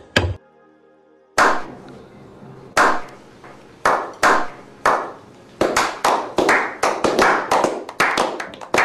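A slow clap: single hand claps spaced a second or more apart, then more hands join in and the claps speed up into applause.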